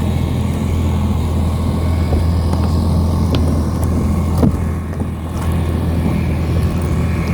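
An engine running steadily with a low drone, most likely a small boat's motor, with one short knock about four and a half seconds in.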